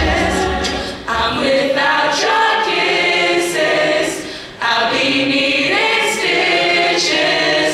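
A cappella choir singing, voices only with no instruments, in sustained sung phrases. The sound briefly drops away between phrases about a second in and again at about four and a half seconds.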